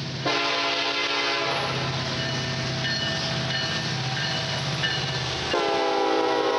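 Freight train led by a Norfolk Southern EMD SD70ACe locomotive passing close by, its diesel engines rumbling low throughout. The locomotive horn blasts about a third of a second in, carries on more weakly through the middle, and sounds loudly again near the end.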